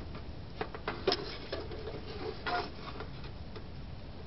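Cast iron skillet being turned on the metal top of an ammo-can stove: a few sharp clicks, a louder clank about a second in, and a short scrape of iron on metal about two and a half seconds in.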